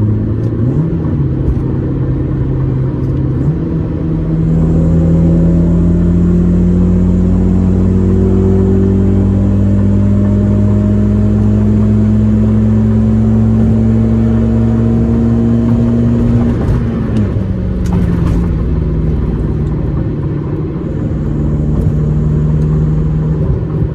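Car engine running under way: two quick changes in engine pitch near the start, then a long slow rise in pitch over about twelve seconds as it pulls in one gear, a sudden drop, and steady running to the end.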